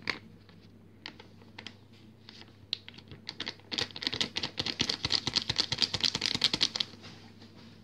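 Paper sachet of baking powder crinkling as it is handled, with a few scattered crackles at first. Then, for about three seconds, it gives a rapid crackling rattle as it is shaken empty over the mixing bowl.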